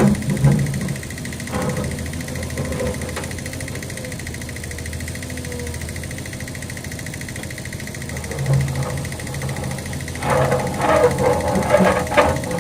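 Backhoe engine running steadily, with a cluster of loud, sharp bursts over the last two seconds or so and a few more near the start.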